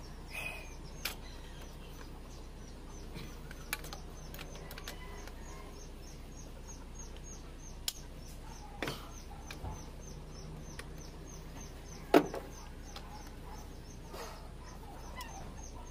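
Scattered sharp metallic clanks and clicks of a socket wrench working the cylinder-head bolts of an Isuzu 4BC2 diesel engine, the loudest about twelve seconds in. Under them runs a rapid, steady high chirping, about three chirps a second.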